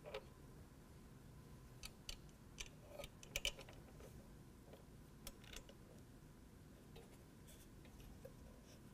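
Faint, scattered clicks of small metal hardware as washers and Nylock nuts are fitted by hand onto the bolts of a tube door's mirror mount, with a quick cluster of clicks about three and a half seconds in.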